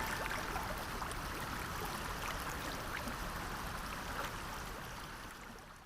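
Shallow mountain stream babbling over rocks, a steady rush of water with small splashes, fading out near the end.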